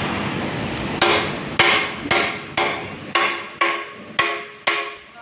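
Hammer blows on the steel parts of a palm-oil bunch press, struck at an even pace of about two a second, each leaving a short metallic ring, during removal of the press screw. The blows start about a second in, after a steady rushing noise.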